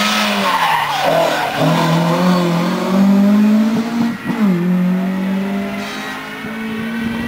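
Rally car engine at hard throttle, climbing in pitch and dropping sharply at a gear change about one and a half seconds in and again about four seconds in, then easing off in loudness as the car pulls away.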